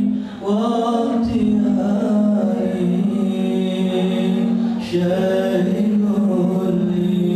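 Arabic sholawat (devotional song in praise of the Prophet) sung a cappella by men's voices in long, drawn-out melismatic notes. The singing breaks briefly for breath about half a second in and again near five seconds.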